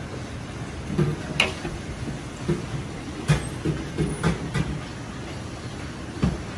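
Metal ladle knocking and scraping against a wok, a string of irregular clanks as stir-fried noodles are scooped out and plated, over a steady kitchen rumble.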